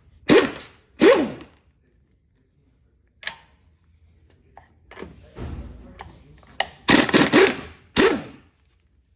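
Loud knocks and clanks of a socket and metal parts being worked at a truck wheel's lug nuts and hubcap. Two hits come in the first second or so, and a quick cluster follows about seven to eight seconds in.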